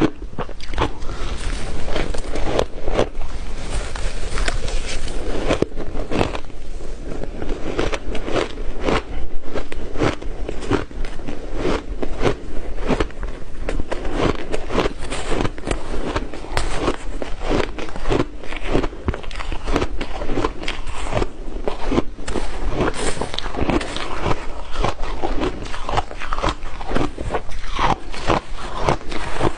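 Ice being bitten and crunched between the teeth, close to the microphone. It comes as a dense, unbroken run of crackling crunches.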